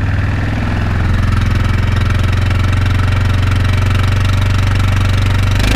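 Quad bike engine held at high revs under load while towing a trailer in diff lock, the wheels spinning for lack of traction on wet grass. The revs climb about a second in, hold steady, and drop near the end.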